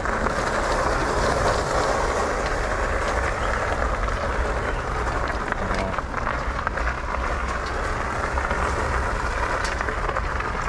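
Steady rushing and rumbling noise with scattered small clicks and rattles: an e-bike riding on a rough trail, its fat tires rolling over the ground and wind buffeting the camera's microphone.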